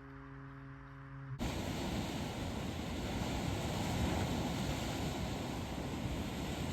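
A faint held musical chord fades out. About a second and a half in, it cuts abruptly to a steady rushing noise of wind and surf at the shore.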